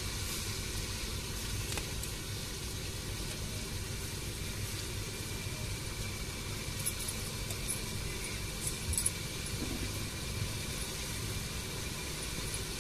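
Steady low rumble of a wood fire burning under a cooking pot, with a few faint crackles.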